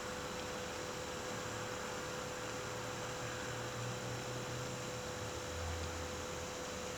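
Steady white-noise hiss for sleep with a constant hum tone through it; a low drone comes in about two and a half seconds in and shifts lower about five and a half seconds in.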